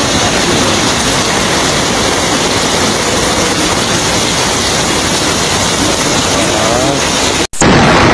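Floodwater rushing in a fast torrent through a narrow passage: a loud, steady rush that cuts off abruptly near the end.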